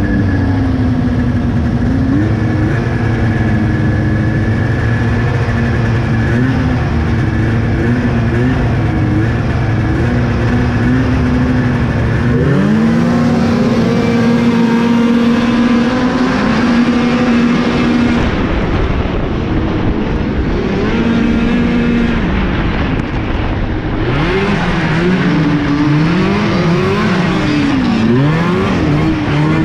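Two-stroke snowmobile engines idling with small throttle blips on a race start line. About twelve seconds in, the nearest sled's engine winds up sharply and holds a high pitch, with other sleds running alongside. Near the end its pitch rises and falls repeatedly as the throttle is worked through a turn.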